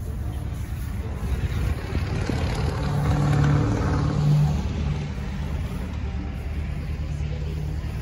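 An engine running steadily, swelling louder about three seconds in and easing off again after about four and a half seconds.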